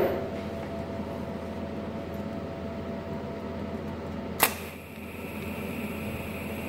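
A TIG welding arc strikes about four seconds in with a single sharp crack, then runs as a steady buzzing hiss with a faint high whine. Before the strike there is only a low steady hum.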